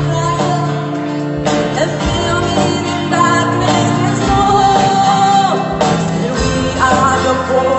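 Music with singing over instrumental accompaniment.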